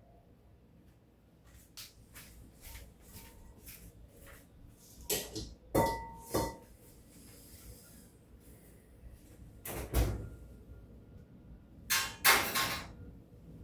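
A series of knocks and clatters from kitchen things being handled, set down and shut. The louder ones come about five to six seconds in, at ten seconds, and near the end, and one leaves a short ring.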